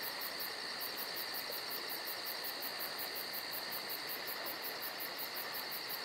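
Electroacoustic fixed-media soundtrack: a steady high hiss with two held high tones and a fast, even high pulsing on top, about four pulses a second.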